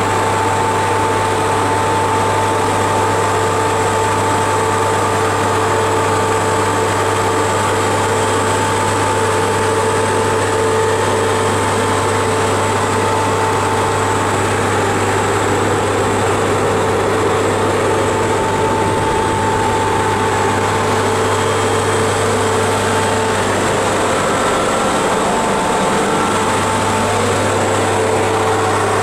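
Machinery running inside the machine room of a series 461 electric locomotive: a steady deep hum with several steady higher whining tones above it.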